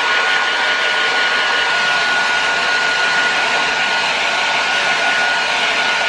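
Handheld hair dryer running steadily, a constant rush of air with a thin, steady high whine, blowing on damp hair.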